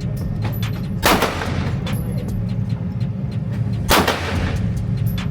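Two handgun shots about three seconds apart, each sharp and followed by a short echo, over a steady low hum, with fainter shots and clicks in between.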